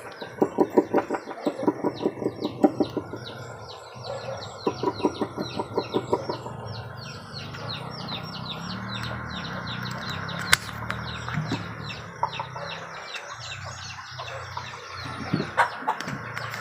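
Background bird calls: two runs of quick rhythmic clucking, about five clucks a second, over steady high chirping.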